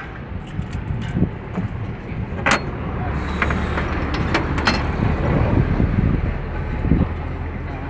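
Metal hand tools clinking and tapping on an excavator's steel deck, several sharp clicks in the first five seconds, over a low steady rumble that grows stronger about three seconds in.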